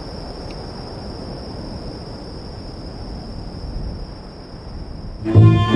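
A cricket trilling steadily as one high tone over a low, even background noise. Both cut off near the end, when bowed-string music with a cello starts.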